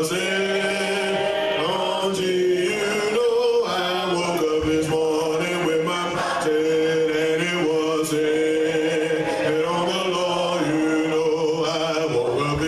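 A man's voice singing in church, over music that holds long, steady notes.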